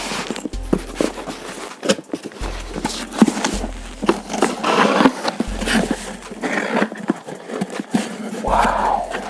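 Packaging being handled and unwrapped by hand: rustling and scraping with many scattered clicks and knocks, with louder rustling bursts about halfway through and near the end.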